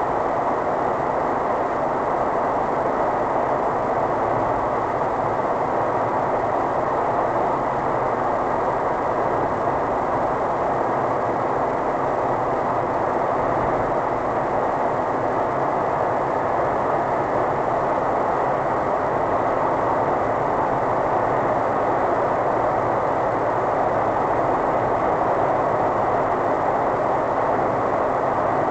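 Steady road and tyre noise with engine drone from a car cruising at motorway speed, heard inside the cabin.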